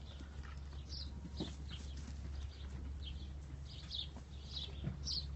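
Goats moving about in their pen, a few faint hoof knocks and scuffs over a steady low hum, with scattered short high chirps.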